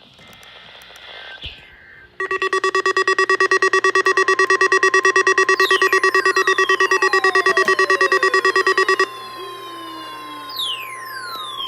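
Electronic warning alarm tones. About two seconds in, a loud multi-pitch tone starts pulsing rapidly and runs for about seven seconds, with falling whistle-like glides layered over it from the middle on. It then gives way to a single steady tone with more falling glides.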